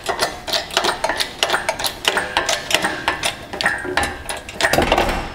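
Rapid, irregular metallic clicking and clanking from a shop engine crane and its lifting chain as it works with an outboard powerhead hanging from it, with a brief high metallic ring now and then.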